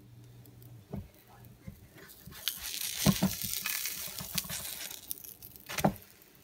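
A silicone spatula working under a pancake in a nonstick frying pan and flipping it: a few sharp taps of the spatula against the pan, and a hissing stretch of scraping and sizzling in the middle, ending in a knock about six seconds in.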